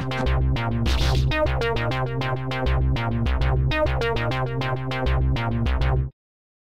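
Background music with a keyboard melody over a steady beat, cutting off suddenly about six seconds in.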